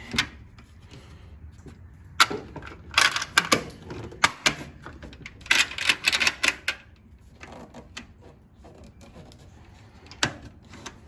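Sharp clicks and metallic clatter from the parts of a switched-off box fan being handled: its housing, latches and screws. The clicks come in clusters between about two and seven seconds in, with one more near the end.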